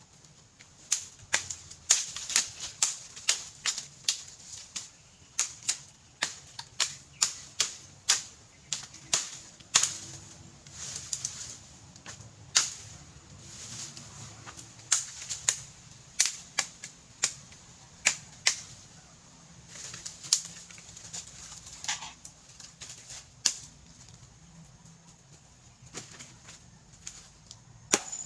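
A long run of sharp knocks or chops, irregular at about one or two a second, thinning out near the end.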